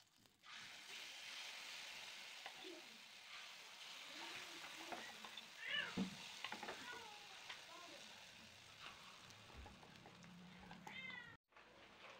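Moong dal batter sizzling in hot oil as spoonfuls are dropped in to fry into fritters, a steady faint hiss that starts about half a second in. A few short high-pitched calls cut in, loudest about six seconds in and again near the end.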